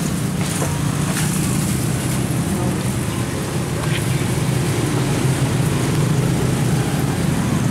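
Steady low rumble of road traffic and running engines, with a few faint clicks.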